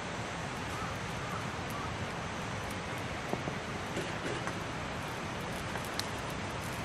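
Wood fire burning under a grill with a few faint crackling pops, over a steady rushing hiss.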